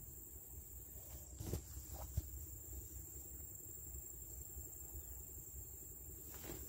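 Steady high-pitched trill of insects, such as crickets, over a low rumble on the microphone. Two small knocks about one and a half and two seconds in.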